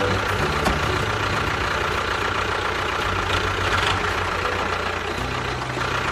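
An engine running steadily at idle, like a small truck, with a low bass line in the background that changes note about five seconds in.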